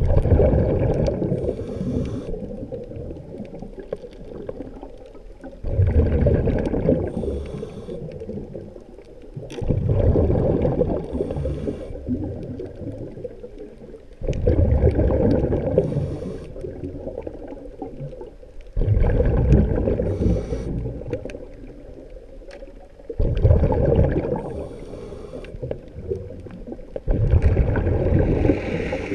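A swimmer's breathing heard underwater through the camera housing: a burst of breath and bubbles about every four to five seconds, seven times, each starting suddenly and fading away.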